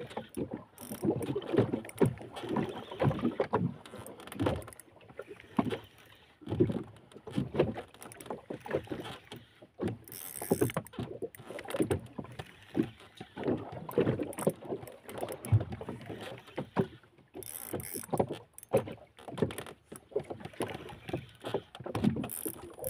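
Water slapping and knocking irregularly against a small boat's hull, with rod and spinning-reel handling and cranking while a big tuna is fought on the line.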